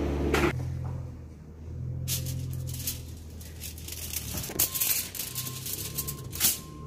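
Rustling, crinkling handling noise in several short bursts, over a low steady hum.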